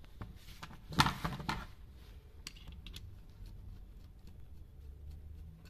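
Hand-tool handling noise: a short clatter about a second in, then a few faint clicks, as a screwdriver is taken up and fitted into the screw inside an electric drill's chuck. A low steady hum runs underneath.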